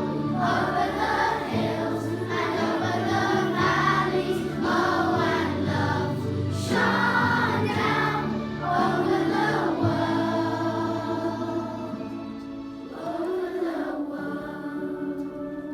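A choir of children singing a song with instrumental backing. The singing ends shortly before the close, and the accompaniment fades out.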